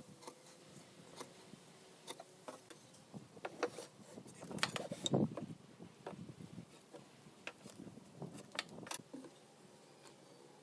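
Irregular light clicks and knocks of wood and hand tools being handled in woodworking, with a louder cluster of knocks about four to five seconds in.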